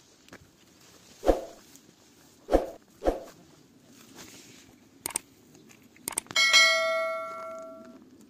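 Three dull thumps, then two sharp clicks and a bell that rings out and fades over about a second and a half: the click-and-bell sound effect of an on-screen subscribe-button animation.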